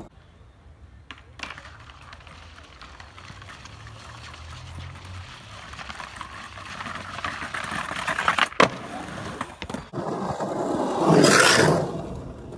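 Skateboard on concrete: wheels rolling and a grind scraping along a ledge, growing louder, then a sharp clack of the board about eight and a half seconds in, and a louder rush of wheels near the end.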